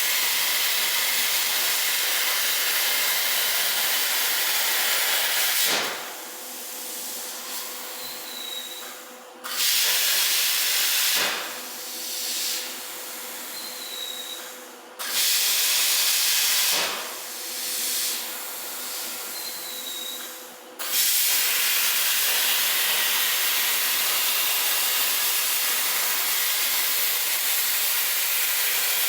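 CNC plasma cutter arc hissing loudly and steadily as it cuts, cutting off abruptly three times for a few seconds between cuts and restarting each time, with a quieter air hiss in the pauses.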